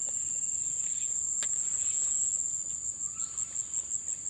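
Steady high-pitched trilling of insects, unbroken, with a single sharp click about a second and a half in.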